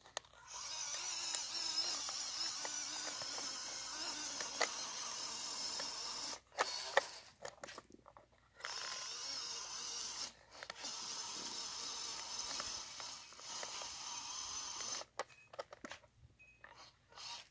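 WPL C24 RC truck's upgraded electric motor and transmission whirring under throttle as it drives. It runs for about six seconds, cuts out, then runs again in two longer stretches, broken by short gaps with a few clicks, and falls quiet near the end.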